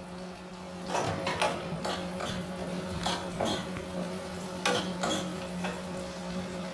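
Metal spoon stirring and scraping cubed potatoes and sliced onions as they fry in oil in a nonstick pan, with a dozen or so short scrapes and clinks against the pan. A steady low hum runs underneath.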